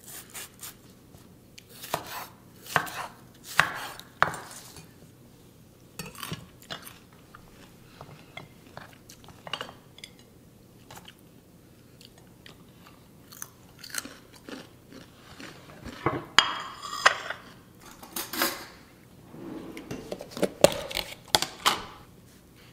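Kitchen food-prep sounds: irregular knocks of a knife and hands on a wooden cutting board as bell pepper strips are handled onto a plate. Near the end comes short scraping as a metal spoon scoops hummus from a plastic tub.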